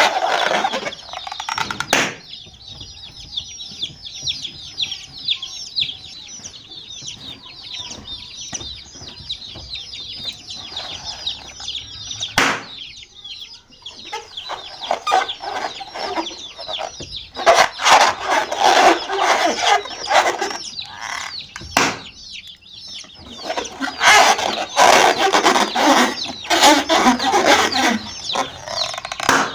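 A flock of baby chicks peeping continuously in many short, falling high chirps. Louder, lower clucking calls come in at the start and in two longer stretches in the second half, with a few sharp knocks in between.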